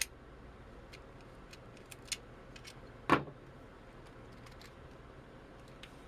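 Small scattered clicks and taps of hand tools and cable being handled at a workbench, with one louder knock about three seconds in.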